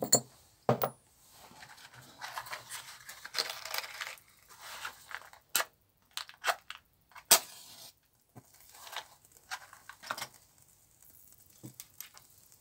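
Sharp clicks and knocks of a glass spirit lamp's cap and metal tools being handled on a workbench, with rustling and scraping in between; the loudest knock comes about seven seconds in.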